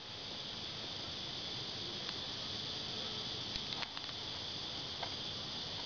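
Steady high-pitched insect drone, with a few faint light clicks.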